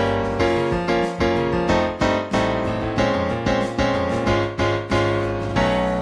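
Piano playing the keyboard part of a pop song: struck chords about twice a second over a steady bass line.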